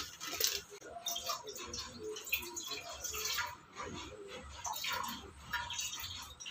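Water heating in a pot on a gas stove, with light, irregular bubbling and ticking.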